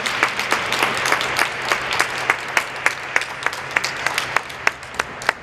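Audience applauding, the clapping thinning out to a few scattered last claps and stopping near the end.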